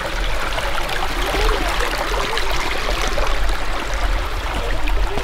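A small, shallow creek running over rocks: a steady rushing of water, with a low rumble on the microphone.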